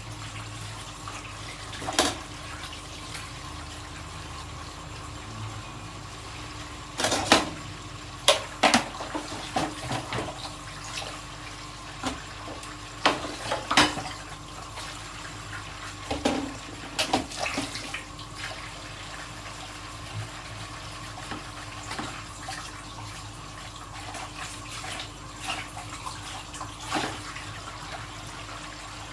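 Kitchen tap running steadily into a sink while dishes are washed, with irregular clinks and knocks of dishes and utensils. The clatter is busiest from about seven to eighteen seconds in.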